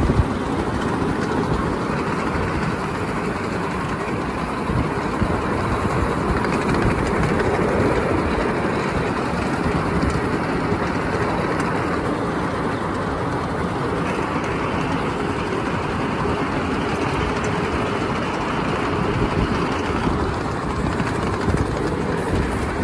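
Ride-on miniature railway train running steadily along the track, heard from aboard, with the continuous rumble and clatter of its wheels on the rails.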